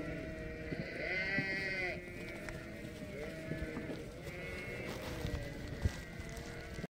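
A flock of sheep bleating, many calls overlapping, with one loud bleat about a second in.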